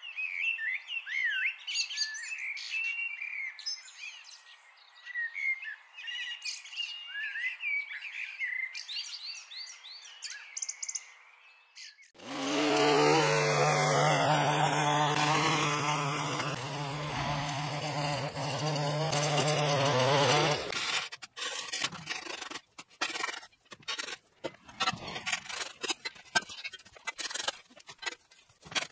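Small birds chirping and twittering, then from about twelve seconds in a loud steady drone with a low hum for about eight seconds that stops abruptly. After it, a rake scrapes and clicks in quick irregular strokes over dry leaves and sticks on a concrete footpath.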